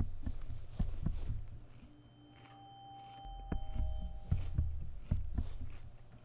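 Suspense film score: low, pulsing thuds with a few held high tones that sound about two seconds in and fade out around four seconds.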